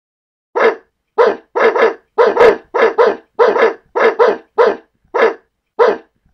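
A dog barking about fifteen times in quick succession, some barks coming in pairs.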